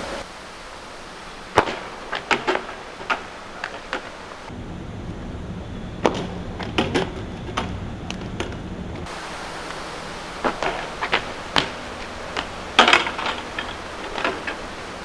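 A run of sharp knocks and clatters: a BMX bike's metal frame and wheels hitting asphalt and a rider's shoes slapping down as he bails off a drop. A steady outdoor hiss lies underneath and changes suddenly twice.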